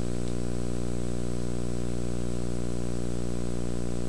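Steady electrical hum with many evenly spaced overtones, unchanging throughout.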